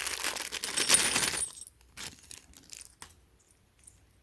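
Small metal screws and washers clinking and rattling as they are handled and tipped out of a plastic bag, busiest over the first second and a half, then a few light clicks.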